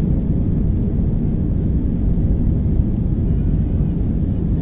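Cabin noise of an Airbus A319 on the ground before takeoff: a steady low rumble of the jet engines and the aircraft rolling slowly along the runway.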